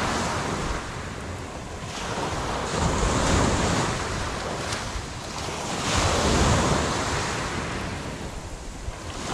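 Sea waves washing onto a beach, swelling twice, with wind buffeting the microphone.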